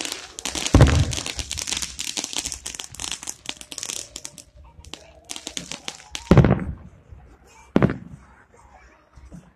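Aerial fireworks: a shell bursts with a deep boom about a second in, followed by about three seconds of dense crackling. Two more booms follow, about six seconds in and near the end.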